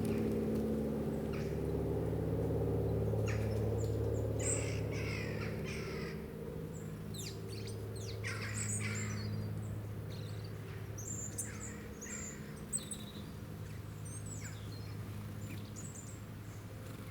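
Wild birds giving short chirps and harsher calls in scattered bursts, over a low steady hum that fades away about six seconds in.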